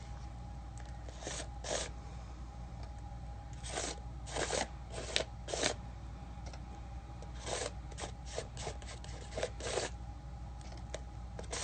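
Palette knife scraping black gesso across a plastic stencil on a small stretched canvas, in a series of short, irregular scraping strokes.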